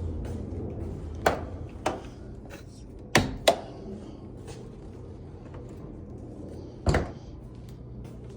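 A few scattered knocks and clicks from handling metal car parts and tools: two light taps near the start, two louder knocks in quick succession around the middle, and a duller thump near the end, over a low steady hum.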